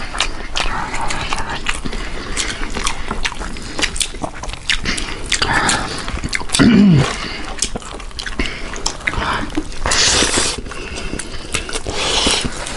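Close-up mukbang eating sounds: wet chewing and lip smacks with many small clicks, and fingers mixing rice on a stainless steel plate. About two-thirds through, a short hum-like voice sound falling in pitch is the loudest thing.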